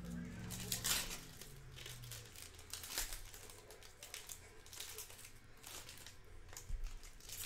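Shiny foil trading-card pack wrappers crinkling and tearing open as the cards are pulled out, in short rustling bursts every couple of seconds.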